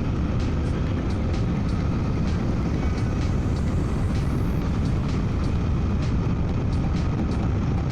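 2024 Suzuki V-Strom 800DE motorcycle cruising at a steady speed, heard from inside the rider's helmet: a steady rush of wind and road noise over the 776 cc parallel-twin engine's drone.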